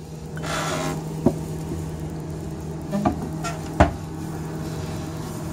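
Microwave oven running on full power with a steady hum, heating a bottle of agarose gel solution to the boil. Three short sharp knocks break in, the last about four seconds in being the loudest.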